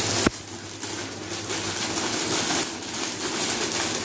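Packing paper rustling and crinkling in irregular spells as it is handled and unwrapped, with a single sharp click just after the start.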